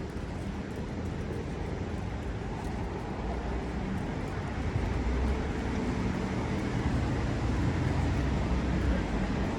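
City street traffic: a low, steady vehicle engine rumble that grows louder from about halfway through.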